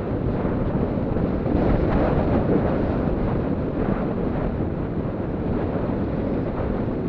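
Wind rushing over an action camera's microphone during a fast bicycle descent on a rough mountain road, with the bike rattling and ticking over the bumps.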